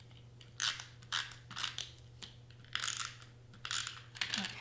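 Tombow glue runner being run across black cardstock in about six short strokes, spaced roughly half a second to a second apart, each laying down a strip of tape glue.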